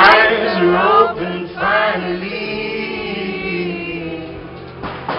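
Live band music with singing, heard from the audience at a festival stage, with guitars and keyboard under the vocals. A sharp click at the very start.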